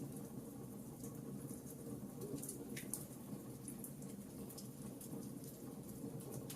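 Wood fire crackling in a fireplace: a steady low rumble of burning with small, irregular crackles and snaps.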